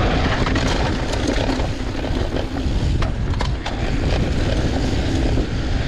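Mountain bike rolling fast down loose, dusty singletrack: a steady rush of tyres on dirt and the bike rattling, with a few sharp clicks a little past halfway.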